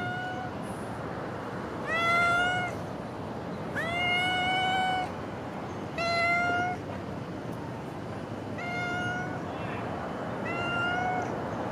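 Brown tabby stray cat meowing repeatedly: six clear meows about two seconds apart, the one about four seconds in the longest.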